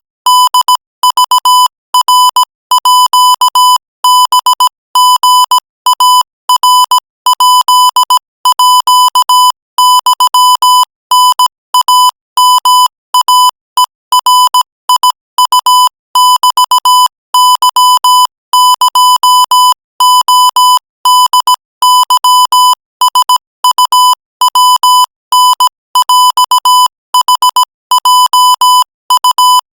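Morse code sent at 20 words per minute: one buzzy, high-pitched beep tone keyed on and off in quick dots and dashes, with short gaps between letters and longer gaps between words.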